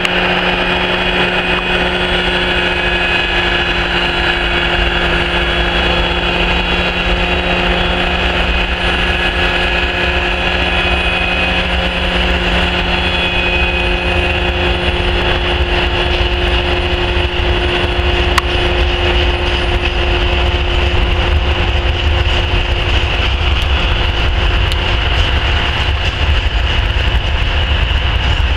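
Newag 6Dg diesel shunting locomotive running steadily under way, a steady engine drone, with a low rumble of the train's wheels and covered hopper wagons growing louder in the second half.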